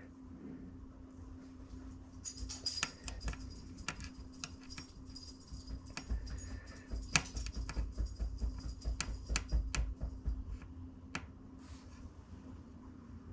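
Irregular run of small metallic clicks and scraping with a light jingling ring, starting about two seconds in and dying away about ten seconds in, as a soldering iron tip is worked against metal while it is tinned and cleaned. A steady low hum sits underneath.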